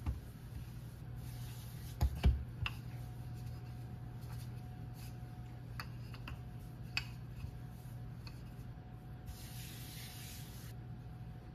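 Wooden rolling pin rolling pie dough on a floured granite countertop: small clicks and knocks, with two low thumps about two seconds in. Near the end, a hand rubs across the dough with a brushing hiss.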